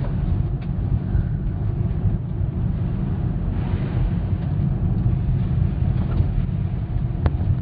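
Car driving slowly on a country lane, heard from inside the cabin: a steady low rumble of engine and tyres, with a single sharp click near the end.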